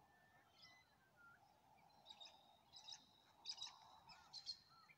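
Faint birdsong from wild birds: short high chirps and brief whistled notes, growing busier with quick clusters of calls from about two seconds in.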